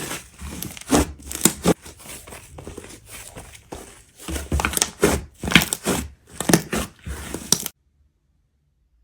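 Clay slime being squeezed, poked and stretched by hand, giving a dense run of crackling, crinkling pops. It cuts off suddenly about a second before the end.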